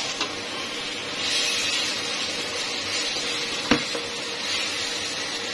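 Sliced onions and whole spices sizzling in hot oil in an aluminium pot as a spatula stirs them, with a sharp knock of the spatula against the pot about two-thirds of the way through.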